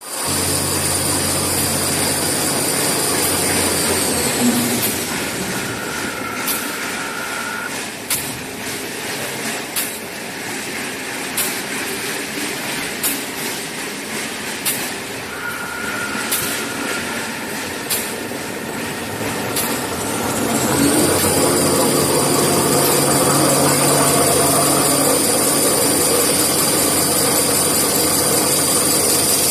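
Toilet tissue and kitchen towel converting machine running: a steady mechanical din from its rollers and drives, with a high whine near the start and again in the last third. Through the middle there is a sharp knock about every one and a half seconds.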